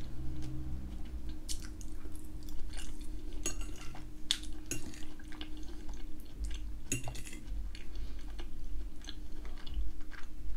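Close-up mouth sounds of chewing soft, creamy ham and potato gratin: irregular wet smacks and clicks. A fork clinks and scrapes on the plate as more is scooped up.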